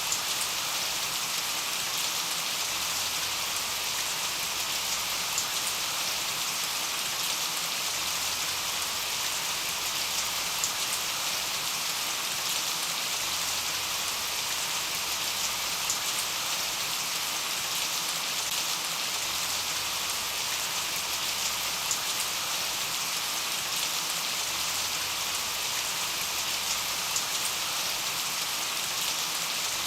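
Steady rain falling, an even hiss with scattered louder drop ticks.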